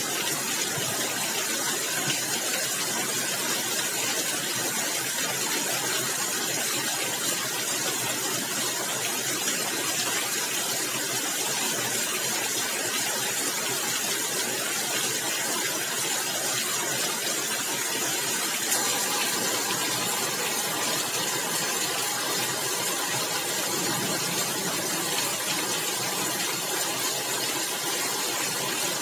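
Steady rain falling on a tiled roof, a dense even hiss with faint scattered ticks of drops.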